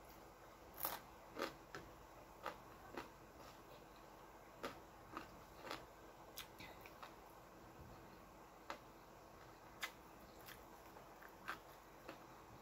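Faint chewing and crunching of crispy fried small fish eaten by hand, heard as irregular short clicks and crackles.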